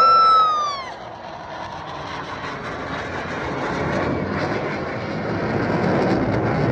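A short high whoop from a spectator at the start, then the rushing engine noise of a military jet flying past, building steadily louder over several seconds.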